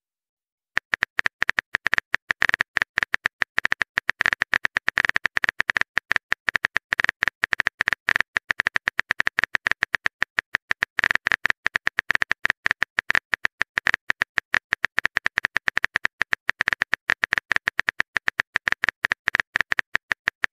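Phone keyboard typing sound effect: a rapid, uneven stream of short clicks, several a second, starting just under a second in as a message is typed out.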